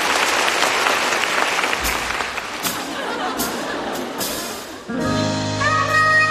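A concert audience applauding. About five seconds in, the band comes in with a sustained held chord.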